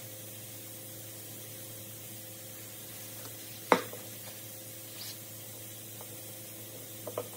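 A single sharp metallic clack about halfway through as a cast main bearing cap with its shell is set on a steel-topped bench, with a couple of light clicks of the caps being handled near the end, over a steady room hum and hiss.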